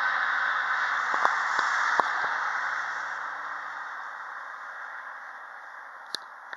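Rolls-Royce Trent XWB engines of an Airbus A350-941 giving a steady jet roar on the climb-out after takeoff, fading away as the aircraft climbs off into the distance. A few short clicks sound over it, twice in the first two seconds and once near the end.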